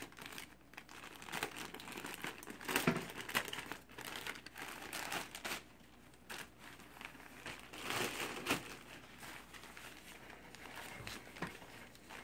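Clear plastic bag crinkling and rustling in irregular handfuls as it is opened and a cloth ring skirt is pulled out of it, loudest about three seconds in and again around eight seconds in.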